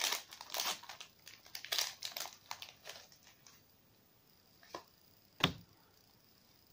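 Foil wrapper of a Pokémon TCG Roaring Skies booster pack crinkling as it is opened and handled, for about three and a half seconds. Then two short knocks, the second louder, about five seconds in.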